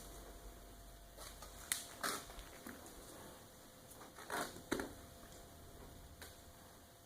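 A pet hiccuping: short, sudden hics, two close together about two seconds in and two more about four and a half seconds in, with a couple of fainter ones between.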